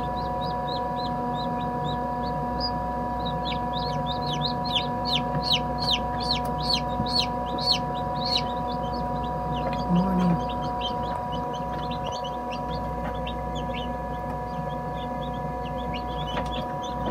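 Newly hatched chicks peeping inside an incubator: rapid high-pitched chirps that slide downward, thickest from about three to eight seconds in. Under them runs a steady hum from the incubator.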